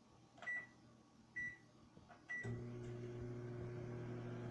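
Microwave oven keypad beeping three times as the time is entered, then the oven starting up about two and a half seconds in and running with a steady low hum.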